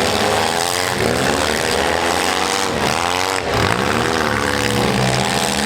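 Demolition derby compact cars' engines revving up and easing off in repeated swells of rising and falling pitch, more than one running at once.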